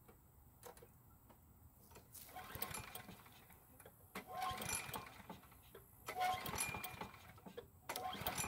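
Recoil starter of a Craftsman push mower's Briggs & Stratton engine pulled four times, about two seconds apart, each pull a brief whirring crank of the engine that never fires. The engine will not start after only three presses of the primer bulb.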